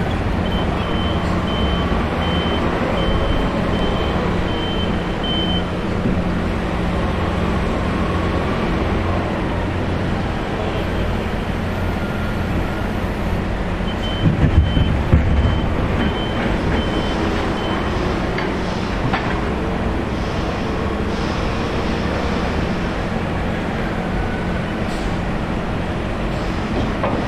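Steady rumble of vehicle noise with a high reversing-alarm beep sounding in a run of short, evenly spaced beeps near the start and again about halfway through. A brief low buffet comes about halfway through.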